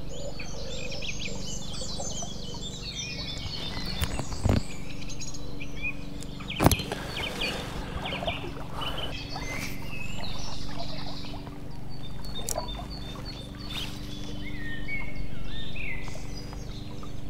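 Small songbirds singing and chirping over a steady low background of running water. A few sharp knocks sound about four seconds in and again at about six and a half seconds.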